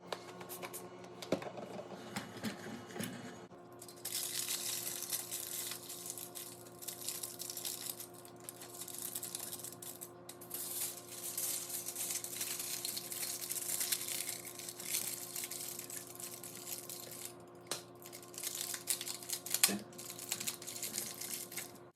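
Crinkly rustling and scratching of hands working craft materials, with scattered small taps and clicks, over a steady low hum.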